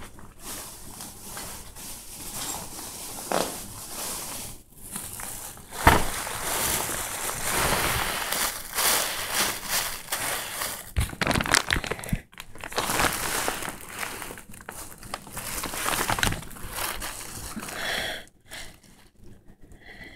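Praying mantis chewing through a Dubia roach's shell: irregular crunching and crackling, denser and louder from about six seconds in, with a sharp crack there, dying down near the end.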